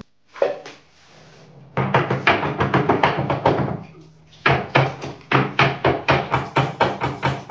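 Background music with a fast, steady percussive beat of about four strokes a second, which pauses briefly in the middle.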